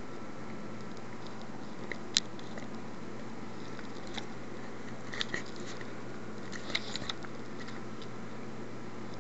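Steady low hum and hiss of an open recording microphone, with a few small sharp clicks scattered through it: the sharpest about two seconds in, and small clusters around five and seven seconds.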